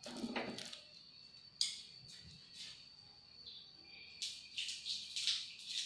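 Cooking oil heating in a nonstick frying pan, giving faint, scattered crackles and spits that come more often from about four seconds in as the oil gets hot. A faint steady high-pitched whine runs underneath.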